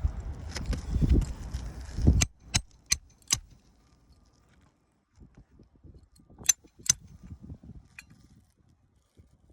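Low scuffing and rumbling for about two seconds, then four sharp taps about half a second apart, and a few more sharp taps later on.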